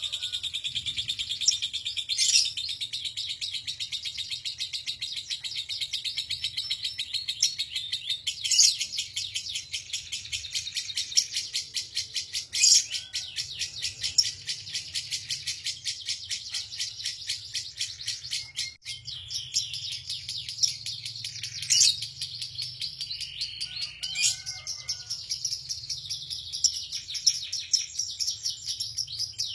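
Lovebird singing ngekek: a long, unbroken run of rapid, high chattering notes, with a few louder sharp notes breaking through every few seconds.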